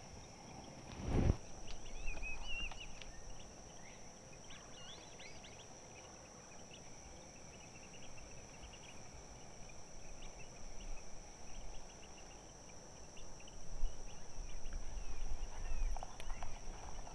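Outdoor ambience: a steady high-pitched insect drone, with short chirps and trills over it and a single knock about a second in.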